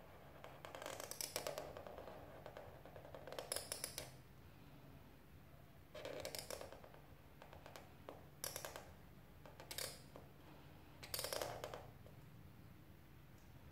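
Black felt-tip marker drawing on paper: quiet scratchy strokes in about six short spurts, each under a second.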